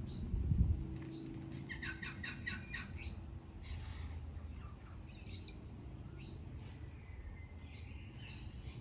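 Birds chirping: a quick run of about six high, evenly spaced calls two to three seconds in, then scattered single chirps. A low thump comes about half a second in.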